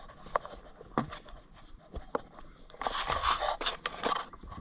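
Hands handling a tractor spark plug wire: a few light clicks and taps, then about a second of rustling and scraping as the wire is worked into place.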